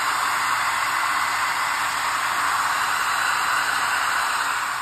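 Handheld hair dryer running steadily, blowing hot air onto the wrist of a simulated IV training arm to heat it.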